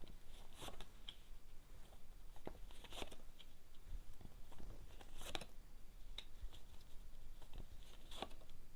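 Quiet handling of Lenormand cards being drawn and laid out: a few short, crisp snaps and rustles spread through, the loudest about five seconds in and another near the end.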